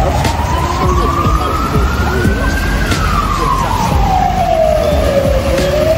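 Emergency vehicle siren on a slow wail: the pitch rises steadily for about three seconds, falls back over the next three, and starts to climb again near the end, over steady street background noise.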